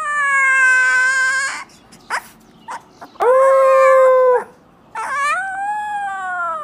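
Husky-type puppy howling in high, thin howls: one already under way slides down in pitch and stops about a second and a half in, a short yelp follows, then a howl held at one pitch and a last one that rises and slowly falls away.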